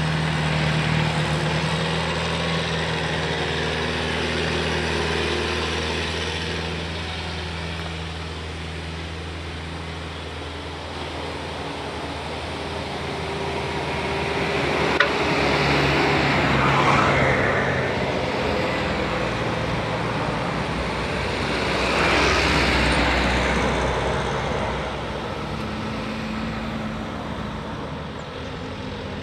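Road traffic on a steep mountain bend: a truck engine running steadily as it climbs, fading away over the first third. Then two vehicles pass close by one after the other, a motorcycle first, each swelling and fading, with a sharp click as the motorcycle arrives.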